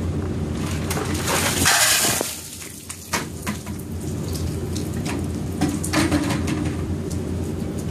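Ice water dumped from a plastic container splashing over a person and onto the ground: a loud rush about a second and a half in, then scattered drips and clicks.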